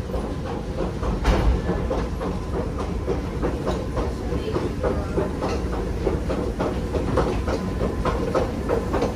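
Subway station escalator running: a steady mechanical hum with a quick, fairly regular clicking and clatter from the moving steps, one louder clack about a second in.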